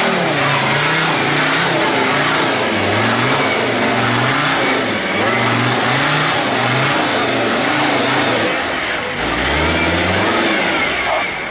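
Engine of a homemade off-road tractor revving up and down over and over as it works through deep mud and climbs the bank, the pitch rising and falling about once a second, with a deeper dip and rise near the end.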